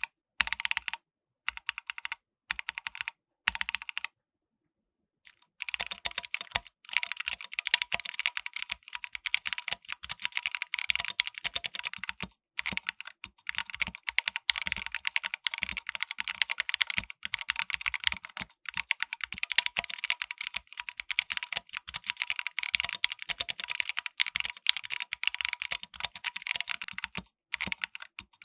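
Akko MOD005 mechanical keyboard with Akko Jelly Black linear switches and Akko Black and Silver keycaps being typed on. A few short bursts of keystrokes come first, then a pause of about a second and a half, then fast continuous typing.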